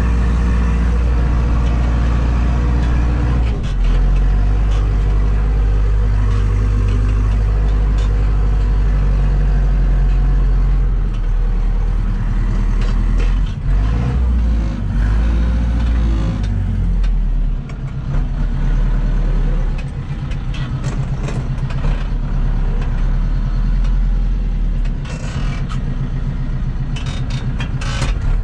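Zetor tractor's diesel engine running under load while pulling a plough, heard from inside the cab. The engine note drops a little about three seconds in and wavers through the middle as the revs change, with scattered clicks and knocks in the second half.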